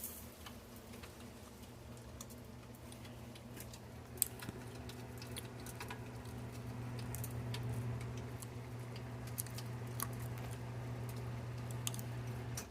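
Newly installed sump pump running on its first test run: a steady electric motor hum starts about a second and a half in, grows louder, then cuts off suddenly near the end. Light ticking and pattering, likely water, sound throughout.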